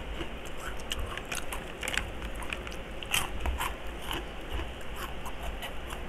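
Close-up crunching and chewing of crispy fried pork rinds (chicharon), heard as irregular sharp crackles several times a second.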